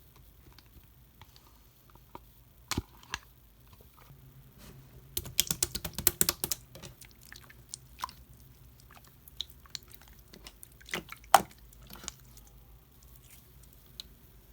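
Pink slime being kneaded together with cake clay by hand, giving sticky clicks and small pops. A dense run of crackling clicks comes about five to seven seconds in, and one sharp pop a little after eleven seconds.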